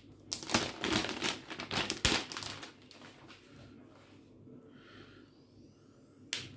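Thin clear plastic protective sleeve crinkling and rustling as a pen display is slid out of it. The dense crinkling lasts about two and a half seconds, with a sharp knock among it. After that there are only faint rustles, and a short click comes near the end.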